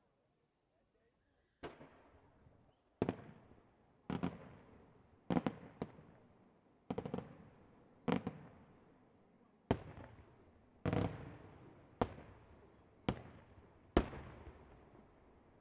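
Fireworks going off in a steady sequence of loud bangs, about one a second, a few in quick pairs, each followed by a fading echo. The bangs start after a second and a half of near silence.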